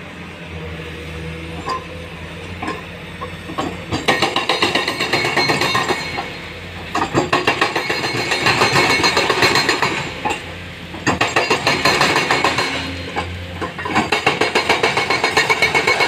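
Hydraulic breaker on a Komatsu excavator hammering a rock face, in four bursts of rapid, evenly spaced blows with short pauses between them, starting about four seconds in. Before that, a diesel engine running steadily with a low hum.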